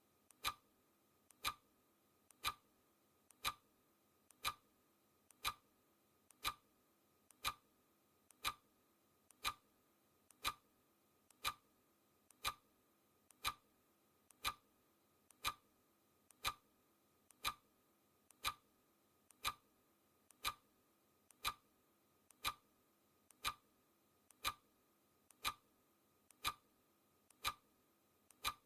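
Clock ticking steadily, one sharp tick a second, each with a faint click just before it.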